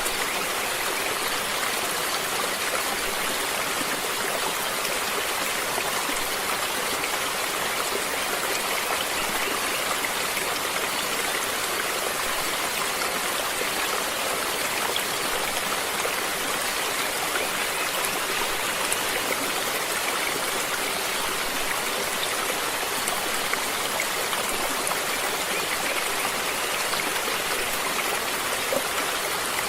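Stream water flowing and splashing steadily, an even rushing hiss with small droplet ticks.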